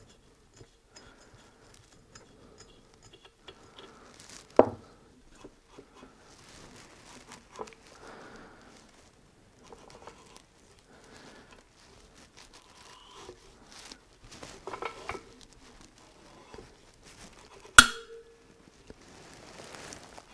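Small metal engine parts handled and clicking at the Yamaha G29 engine's cylinder head as valve-train parts are fitted by hand, with light rustling. Two sharper metallic clicks stand out, one about four and a half seconds in and a louder one with a brief ring near the end.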